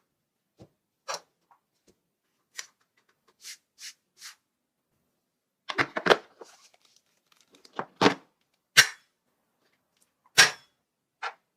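A series of separate short, sharp clicks and snaps with silence between them: a few faint ones early, then a louder cluster about six seconds in, and single loud snaps about eight, nine and ten and a half seconds in.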